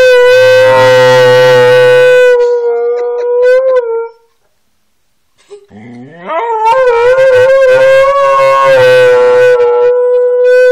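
Siberian husky howling: one long, steady howl that fades out about four seconds in, then after a short pause a second howl that rises in pitch and is held.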